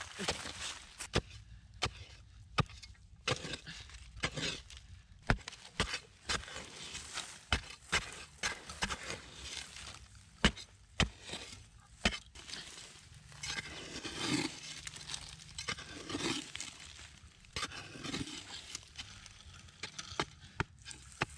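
A metal digging blade on a long wooden pole striking and scraping into hard, dry earth, digging out a tarantula burrow: irregular sharp knocks, with a few longer scrapes past the middle.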